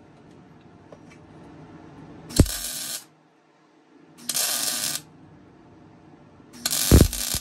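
Wire-feed (MIG) welder laying short stitch welds on thin exhaust tubing: three bursts of arc sizzle, each under a second long and about two seconds apart, the first and last starting with a sharp pop.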